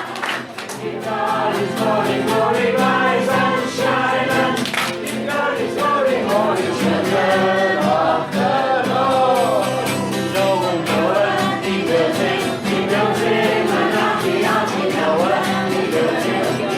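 A large group of voices singing a song together, over a steady low accompaniment.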